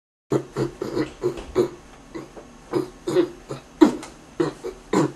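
A man's voice making a quick run of short, choppy non-word vocal sounds, about three or four a second, with a sharper falling one about two-thirds of the way through.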